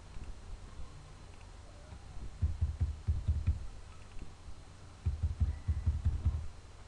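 Computer keyboard typing in two short bursts of rapid, dull keystrokes, the first a little over two seconds in and the second about five seconds in.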